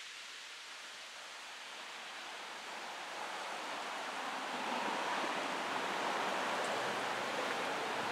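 Wind rustling through the leaves of trees: a steady hiss that slowly grows louder over the first five seconds, then holds.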